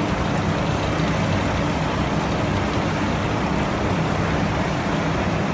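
Continuous groundnut frying machine and its mesh-belt conveyor running: a steady mechanical hum under an even wash of noise, unchanging throughout.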